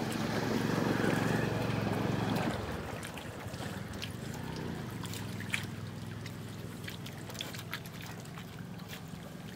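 Water trickling and splashing as a fishing net is hauled by hand through shallow floodwater. It is louder for the first two and a half seconds, then softer, with scattered small drips and splashes, over a low steady hum.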